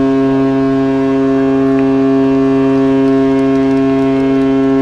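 Ship's horn sounding one long, steady, deep blast.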